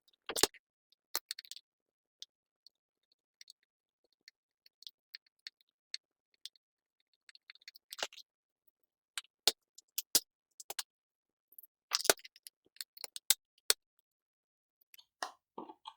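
Scattered sharp clicks and taps from a Husky screwdriver and hands working the small screw that holds a laptop's optical disk drive, the audio sped up.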